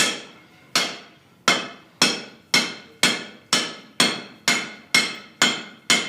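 Hand hammer striking a hot wrought-iron gun barrel on an anvil during forge welding. The blows come in a steady rhythm of about two a second, each ringing briefly.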